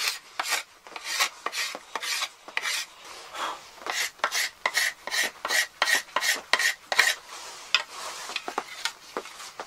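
Cabinet scraper drawn along a yew bow stave in quick, repeated scraping strokes, about three a second, some with a thin squeal, rounding off the sharp edges of the bow. The strokes thin out near the end.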